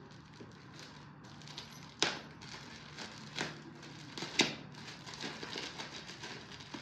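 Gold metallic foil gift wrap crinkling as it is picked at and pulled open by hand, with three sharper crackles, the loudest about four and a half seconds in.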